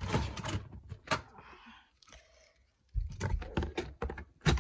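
Knocks and rattles of clear plastic storage drawers and the things in them being handled, in short irregular clatters with a pause about two seconds in.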